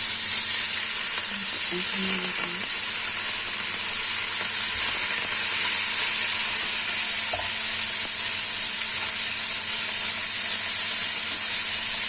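Smoked beef sizzling steadily in hot oil in a wok, freshly added to the pan.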